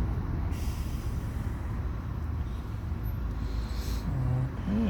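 Steady low background rumble, with two brief hissing scrapes, one about half a second in and one near the end, and a short pitched sound rising and falling just before it ends.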